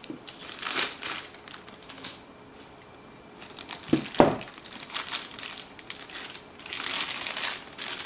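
Plastic packaging crinkling and rustling as tools are freed from their wrapping, with a sharp click about four seconds in.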